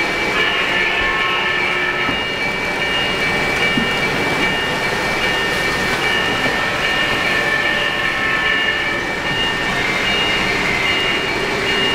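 3-rail O-gauge model train running along the layout track, a steady rumble of wheels and motor on the rails, with a faint high tone pulsing on and off over it.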